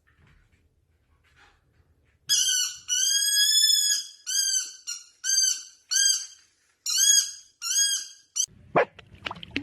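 An animal making a series of high, squeaky, whining calls: one long drawn-out call, then about half a dozen short calls that rise and fall. The calls stop abruptly, and a noisier stretch with clicks and knocks takes over near the end.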